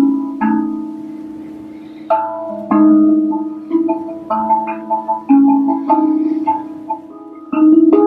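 RAV drum, a steel tongue drum, struck with wooden mallets: single notes ring out and overlap in a slow, unhurried melody. There is a short lull about a second in while the ringing fades, then the strikes come more often.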